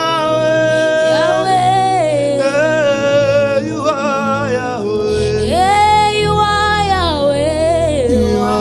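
Worship singing: a solo voice holds long, drawn-out notes that slide up and down in pitch, with no clear words, over a steady sustained accompaniment.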